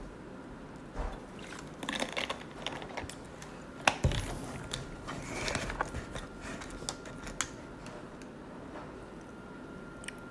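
Scattered small clicks, taps and rustles of things being handled close to the microphone, with the sharpest knock about four seconds in.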